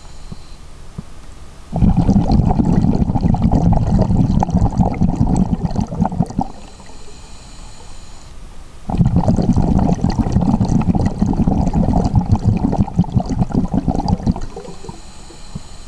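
A scuba diver's breathing through the regulator, heard underwater. Two long bursts of exhaled bubbles, each about four and a half seconds, start about 2 and 9 seconds in. Between them the quieter breath in carries a faint high whine.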